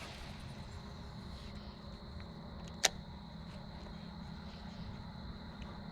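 Steady outdoor background hum: a low rumble with a constant high-pitched tone over it, broken by one sharp click about three seconds in.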